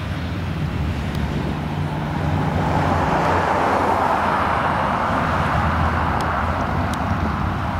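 Motorcycles riding past one after another, their engines running at a low steady pitch; the sound swells louder in the middle and eases off near the end.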